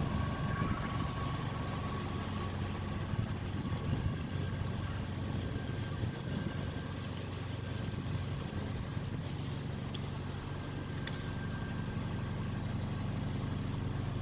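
Bus reversing, its diesel engine running steadily, with a faint steady high tone from the reversing alarm. A single sharp click comes about three quarters of the way through.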